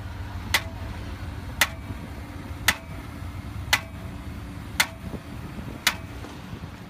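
Hydraulically lifted 60-pound dynamic cone penetrometer hammer dropping onto the steel drive rods: a sharp metallic strike with a brief ring, evenly about once a second, over a steady low engine hum. Each blow drives the cone into the subgrade, and the number of blows per 10 centimetres is the measure of the soil's strength.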